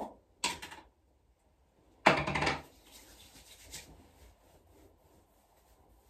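Hand-handling noises: two short knocks or rubs, then a louder scuffing rub about two seconds in, followed by faint rustling.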